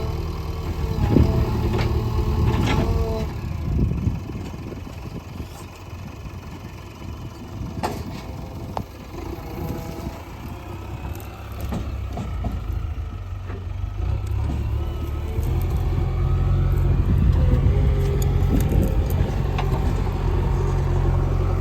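JCB 3DX backhoe loader's diesel engine running under work, with a few sharp knocks in the first three seconds and again about eight seconds in. The engine grows louder and heavier from about fifteen seconds in.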